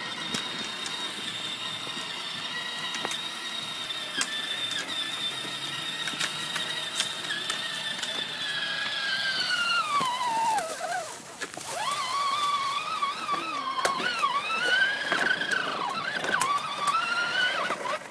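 Electric drive motor of a battery-powered ride-on toy ATV, whining steadily at first. About nine seconds in its pitch glides down as it slows, then wavers up and down as it speeds up and slows again.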